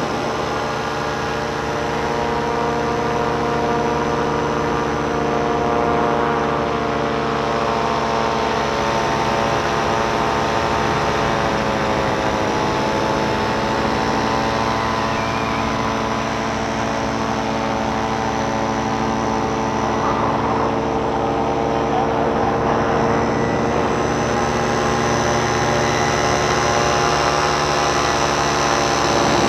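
Tandem paramotor trike's engine and propeller droning steadily in flight, with rushing air; the pitch sags and recovers a little about halfway through.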